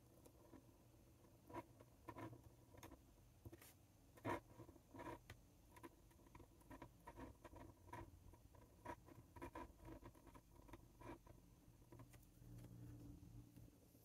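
Faint scratching of a metal dip-pen nib on a paper card as a word is lettered by hand, in a string of short irregular strokes that stop near the end.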